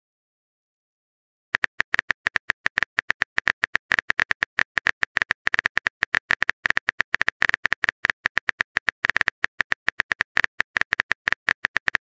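Rapid, irregular phone-keyboard tapping clicks, the simulated typing sound of a chat-story app while a message is being typed, starting about a second and a half in.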